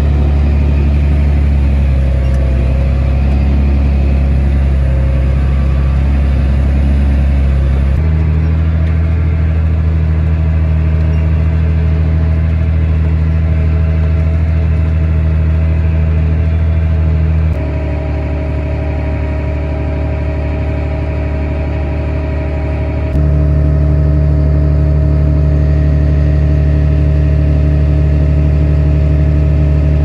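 Heavy diesel farm machinery running steadily, heard from inside the cabs: a John Deere S660 combine harvester and the tractor pulling the grain cart, while corn is augered out. The drone changes abruptly in pitch and loudness about 8, 17 and 23 seconds in.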